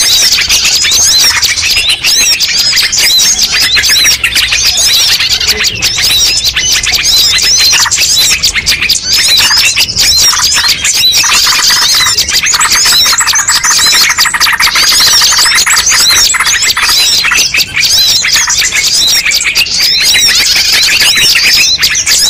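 A dense, loud chorus of many small songbirds chirping, trilling and squawking at once, with calls overlapping without a break: a bird-lure recording mixing many species. A fast run of lower repeated notes joins in about twelve seconds in and fades after about four seconds.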